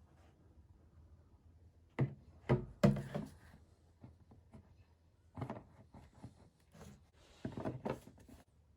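A series of short knocks and clunks of hard objects being handled and set down: three sharp ones close together about two seconds in, then smaller clusters later on.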